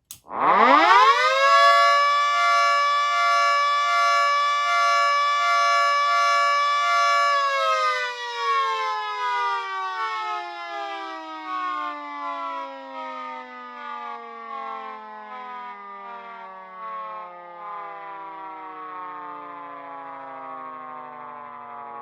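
Homemade miniature model of a Federal Signal 2T22A dual-tone siren, its 10-port and 12-port rotors sounding together as a chord. It winds up quickly, holds a steady tone for about six seconds, then winds down slowly as the rotor coasts to a stop.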